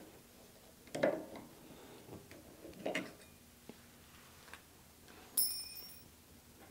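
Steel snap ring being pried off a riding mower's front steering spindle with a hand tool: a few short metal scrapes and clicks, then near the end a sharp metallic clink with a brief bright ring.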